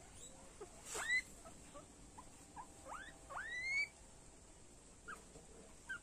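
Guinea pig squealing while a hand holds it down: three sharp rising squeals, one about a second in and two close together around three seconds in, with small chirps between.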